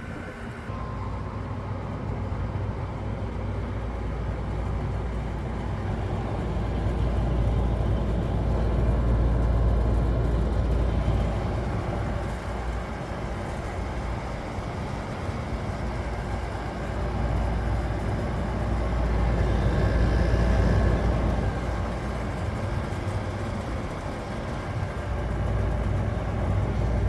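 Room air conditioner starting up: a low hum from the compressor comes on about a second in and keeps running under the steady rush of the fan, swelling and easing in loudness.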